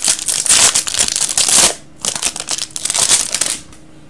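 Foil wrapper of a 2015 Bowman's Best baseball card pack crinkling as it is opened by hand, in two stretches with a brief pause about two seconds in, stopping shortly before the end.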